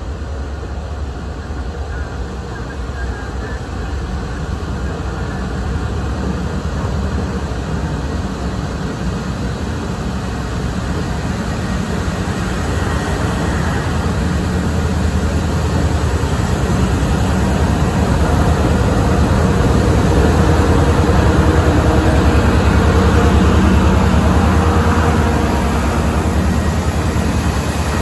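Diesel locomotive leading a rail wash train, approaching and passing below with a steady engine rumble that grows gradually louder, peaking about three quarters of the way through and easing a little as the following cars roll by.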